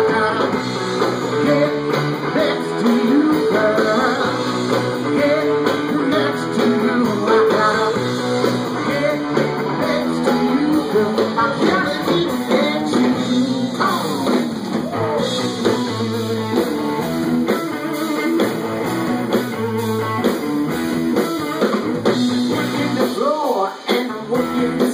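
Live rock band playing an instrumental passage: guitar leading with bent notes over bass and drums.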